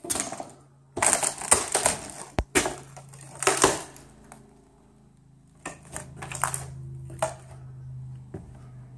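Footsteps crunching and clattering over debris on a wooden floor (loose broken floorboards, fallen tin ceiling tiles and plaster), loudest and busiest in the first four seconds, then sparser. A faint low steady hum runs underneath in the second half.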